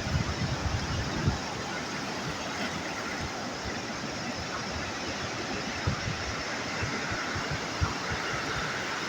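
Steady hiss of sea waves and surf, with irregular low bumps of wind on the microphone.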